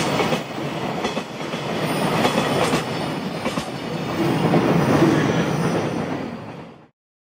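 Freight train of empty container flat wagons rolling downgrade past the listener, wheels clacking over the rail joints with a steady rumble. The sound carries on after the last wagon has gone, then cuts off suddenly near the end.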